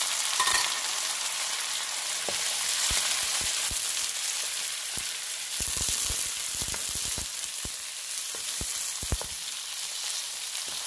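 Head-on shrimp frying in hot butter and chili oil in a stainless steel wok: a steady, loud sizzle. A wooden spatula taps and scrapes against the steel as the shrimp are turned, in quick clusters of clicks mostly in the second half.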